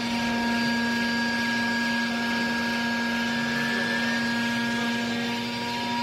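Hydraulic power pack of a vertical used-clothing baler running steadily, its motor-driven pump giving a constant whine over a hiss, as the ram presses clothing down into the bale chamber.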